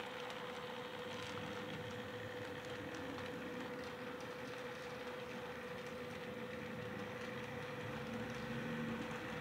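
Model diesel locomotive running along the track, pulling a short freight train: a steady mechanical whir with one held hum.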